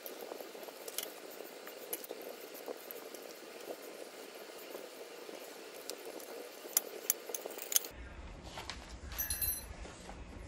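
Steel desk clamp of a monitor stand being handled: its metal plates and threaded rods rattle and clink, with a cluster of sharp clicks about seven seconds in and a brief ringing metallic clink near the end.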